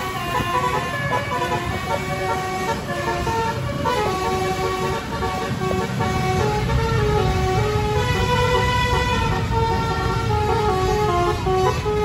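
Basuri musical air horn on a tour bus playing a tune without pause, its chord of trumpet notes stepping up and down in pitch, over steady engine and road noise in traffic.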